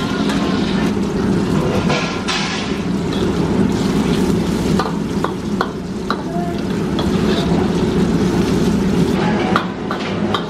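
Chopped garlic deep-frying in hot oil in a carbon-steel wok, the oil sizzling and bubbling steadily. A metal ladle stirs through it and scrapes and knocks against the wok a few times, over the steady low roar of the wok range.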